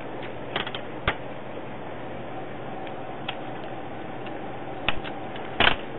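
Scattered clicks and taps from ink-cartridge packaging being handled and opened, with a louder cluster of knocks near the end, over a steady background hiss.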